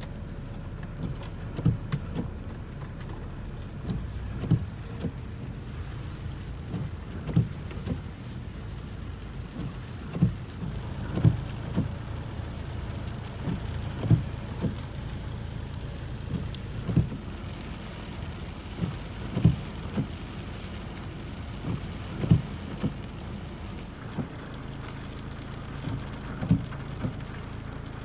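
Heavy rain on a car, heard from inside the cabin: a steady wash of rain with big drops thudding on the roof and glass at irregular moments every second or two, over a low steady hum.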